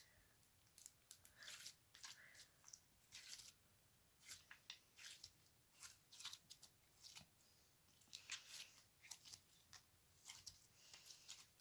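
Slime being worked by hand, giving off faint, irregular crisp crackles, clicks and small pops.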